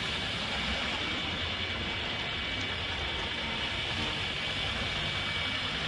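Steady city-centre background noise: an even wash with a low rumble and hiss, no single event standing out.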